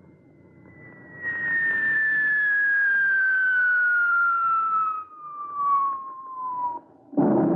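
Sound effect of a V-1 flying bomb (buzz bomb) coming down: one long, slowly falling whistle over a rushing noise, cutting off just before the end. A loud boom follows as it lands.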